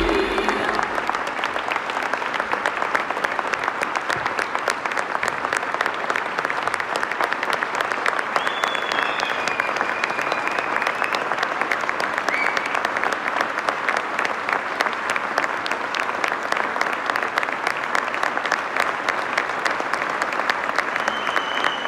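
Large audience applauding steadily, a dense, even clapping that holds throughout: an ovation.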